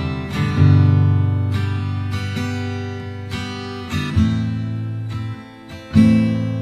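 Music: acoustic guitar chords struck roughly once a second and left to ring over a low bass, with a brief dip about five and a half seconds in before a strong chord near the end.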